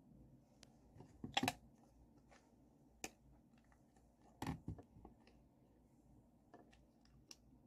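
A few faint, scattered clicks and rustles of hands handling hair and bobby pins as a clip-in ponytail is pinned in place, the clearest about a second and a half in and again about four and a half seconds in, over quiet room tone.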